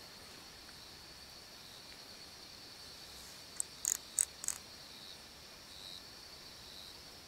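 Faint, steady, high-pitched chirring of night insects in woodland. A little past halfway, four short sharp clicks come in quick succession.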